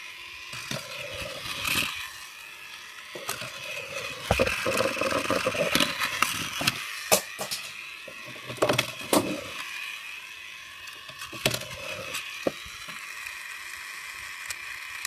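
Battery-powered Tomy Plarail toy train's small electric motor and gearbox whirring steadily at high speed, with repeated clicks and knocks as the toy clatters about.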